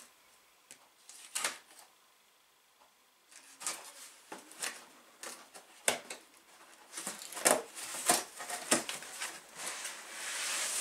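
A knife slitting the packing tape on a cardboard box: short scrapes and scratches of the blade on tape and cardboard, with a pause early on. Near the end the box flaps are pulled open with a rising rustle of cardboard.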